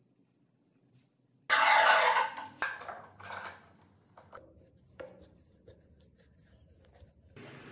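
Metal bar clamps being set across a glued-up hardwood panel and tightened. A loud scraping, rubbing clatter starts about a second and a half in and lasts about a second, followed by scattered light clicks and knocks as the clamps are adjusted.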